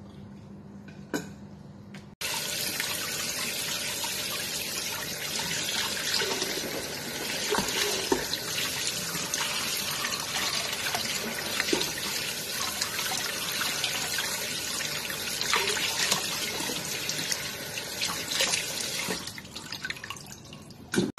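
Tap water running into a steel bowl in a sink while a whole raw chicken is rinsed in it, with splashing as the bird is turned and lifted. The tap comes on suddenly about two seconds in, and the flow drops off near the end.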